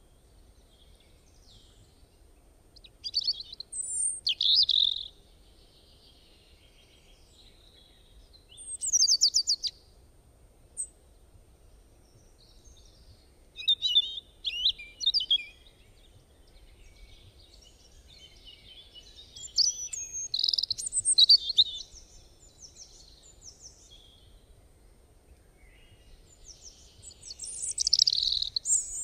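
Birds chirping in short, high phrases every few seconds, including a quick trill about nine seconds in.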